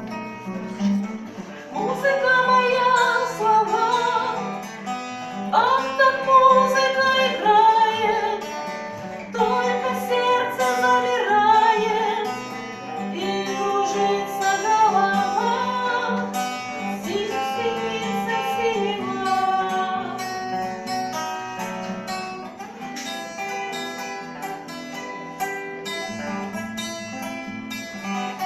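A song: a voice sings a melody over acoustic guitar accompaniment. The sung line is strongest in the first two-thirds, and the guitar carries on alone near the end.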